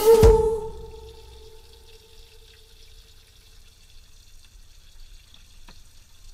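Background music ending on a held note that fades out over about two seconds, followed by a faint steady hiss with a single click near the end.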